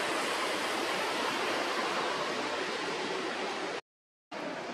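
Steady rushing outdoor background noise with no distinct events. It cuts out completely for about half a second near the end, then resumes.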